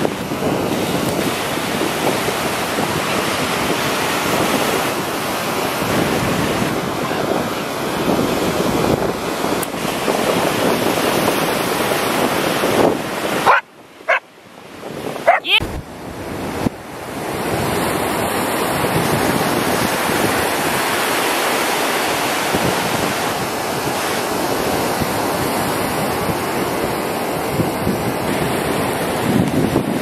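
Sea surf breaking and washing onto a sandy beach, mixed with wind buffeting the microphone. The rush dips away for a few seconds about halfway through, then returns.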